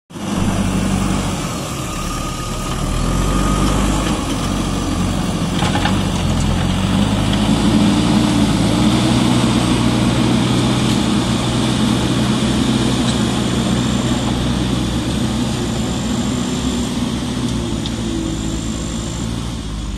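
JCB backhoe loader's diesel engine running as the machine moves over loose earth, its note rising and falling slightly.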